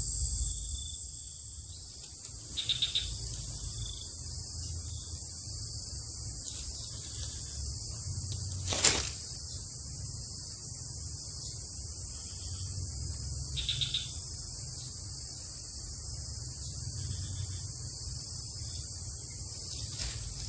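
Steady high-pitched insect chorus over a low rumble, with one sharp click about nine seconds in.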